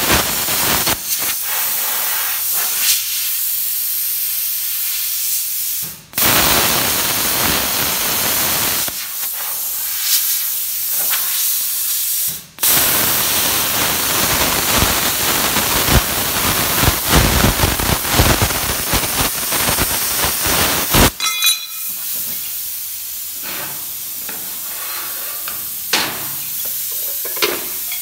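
MIG welding on sheet steel: the arc crackles and hisses steadily in several runs, each broken off abruptly. About two-thirds of the way through the welding stops and softer, uneven crackling remains.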